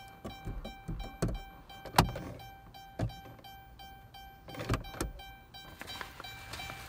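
Sharp plastic clicks and knocks from a 2014 Dodge Caravan's overhead console and sun visor being pressed and flipped by hand, about six in all, the loudest about two seconds in. Background music plays underneath.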